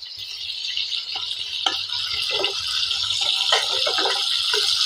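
Chicken pieces sizzling in hot oil in a frying pan as more pieces are dropped in. The sizzle grows steadily louder, with irregular crackles and small taps.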